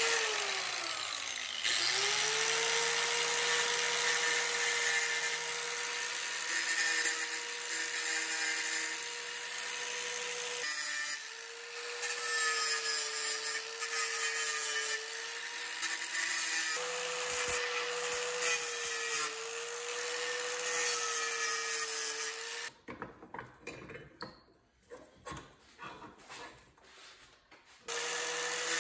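Handheld angle grinder with an abrasive disc grinding out cracks in cast aluminum. The motor's note wavers and sags as the disc bites. About two-thirds of the way through it stops, leaving a few seconds of clicks and handling, and it starts up again near the end.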